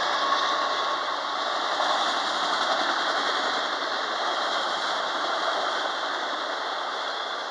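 Enclosed autorack freight cars rolling past: a steady rush of steel wheels on rail that eases slightly as the cars go by. The last of the locomotive horn fades out right at the start.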